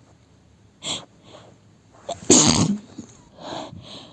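A person takes a sharp breath in about a second in, then sneezes once, loudly, about two seconds in. A weaker breath follows.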